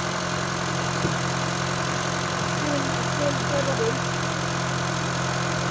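Honda Fit engine idling steadily with the chain noise the mechanic blames on the timing chain.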